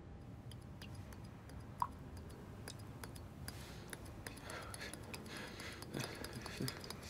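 Faint scattered ticks and light clinks as a small drinking glass is handled, with a short clear ping about two seconds in.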